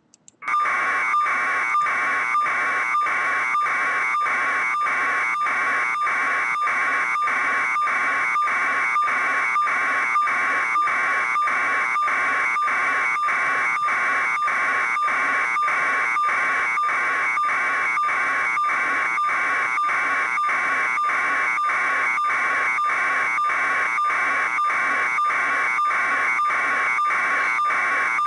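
A steady harsh buzzing noise on a news livestream's audio feed, with a thin steady tone in it and an even pulse of about two and a half beats a second. It starts about half a second in.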